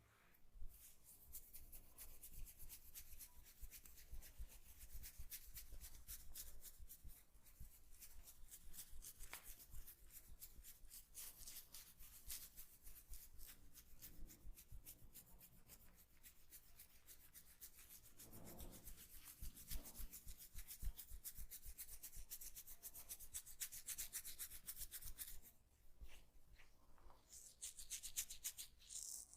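Hands rubbing quickly and rhythmically over a person's head and skin during a massage: a faint, dense run of soft strokes with a short pause near the end.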